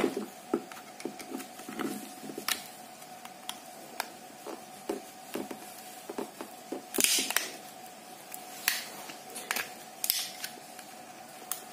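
Samsung TV remote's plastic case being pried apart with a thin metal pry tool: scattered clicks and snaps as the tool works along the seam and the clip latches give, with a longer scrape about seven seconds in. A faint steady hum sits underneath.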